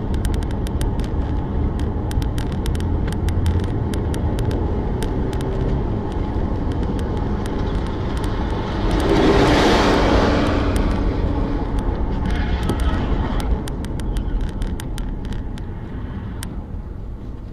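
Car interior road noise from a dashcam: steady engine and tyre noise at highway speed, with scattered sharp ticks. About nine seconds in, a louder rush of noise swells and fades as the car passes close alongside a cement mixer truck.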